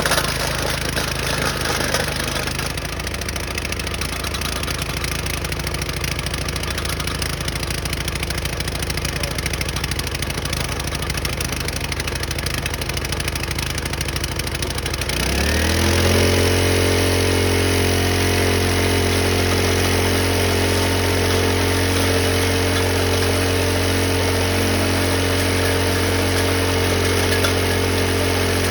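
Rock drilling rig's engine running steadily at low speed. About halfway through it revs up and then holds a louder, higher, steady speed.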